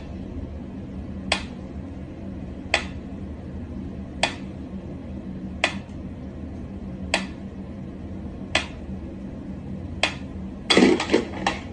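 Pyramid-shaped mechanical metronome ticking slowly and evenly, one sharp tick about every second and a half. Near the end comes a quick flurry of knocks and rattles as a cat paws at it.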